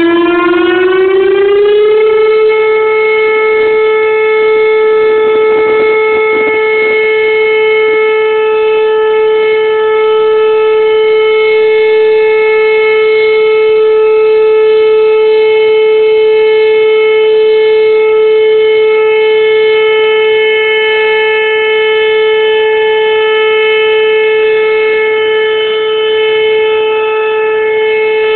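Ten-speaker Whelen electronic outdoor warning siren sounding a loud steady alert tone. Its pitch rises over about the first two seconds, then holds level with a bright, buzzy set of overtones.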